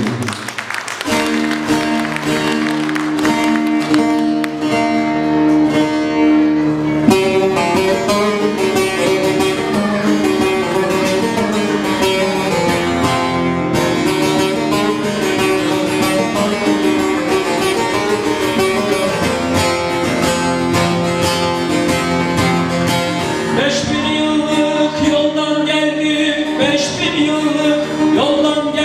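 Bağlama (Turkish long-necked saz) playing a folk tune with fast, even plectrum strokes.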